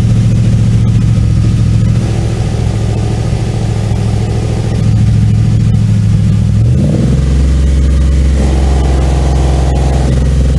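Holden VF Commodore SSV Redline's 6.2-litre V8 idling through its quad-tip bi-modal exhaust. About seven seconds in, the exhaust note deepens as the muffler valves switch between open and closed.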